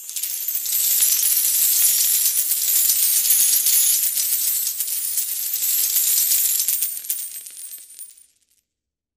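A shower of coins falling and clinking together in a dense, continuous jingle that fades out about eight seconds in.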